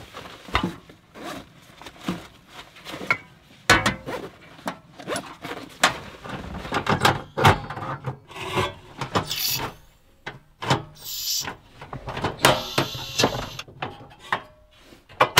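Hands working a built-in butane cassette stove: irregular knocks, clicks and scrapes as its lid and panels are handled and a gas canister is fitted into its compartment.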